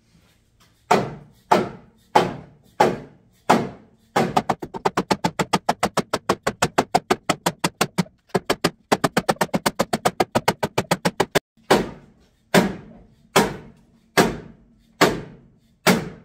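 Rubber mallet hammering a slit 2-inch PVC pipe onto a snowplow blade's cutting edge. Single blows come about one and a half a second, then a fast run of rapid taps for several seconds with a brief break, then slower single blows again.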